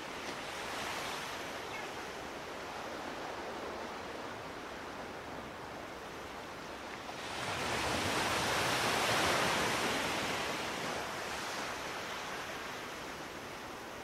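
Steady outdoor rushing noise that swells for about four seconds in the middle and then settles back.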